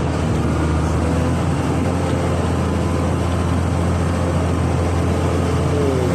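Amphibious excavator's engine running steadily, a continuous low drone, with a faint higher whine that comes and goes.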